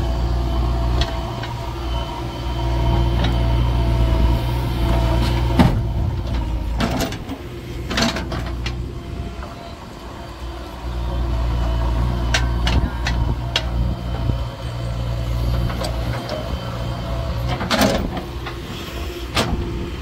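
JCB 3DX backhoe loader's 49 hp diesel engine running under working load, easing off about halfway through and picking up again. A few sharp clanks and knocks sound over it.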